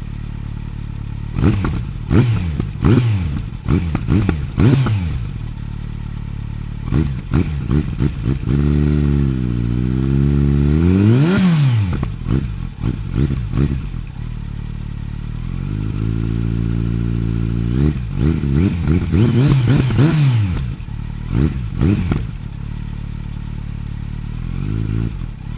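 Kawasaki Z900 inline-four engine through a Bodis GPC RS2 exhaust, idling and being revved in quick throttle blips. Around the middle it holds a raised rev that ends in one sharp blip to high revs. It drops back to idle, then gets more blips and a brief held rev.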